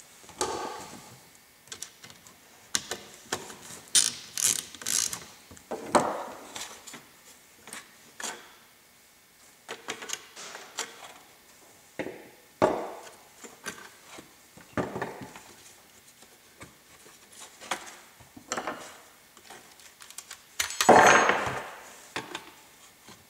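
Plastic housing and parts of a 2003–2007 Honda Accord under-hood fuse box being handled and fitted together on a workbench: scattered clicks, knocks and light rattles, with a longer, louder rattle near the end.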